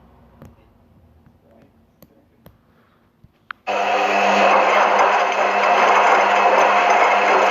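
A few faint clicks, then about halfway through a loud, steady washing machine running noise starts abruptly, with a low hum under it.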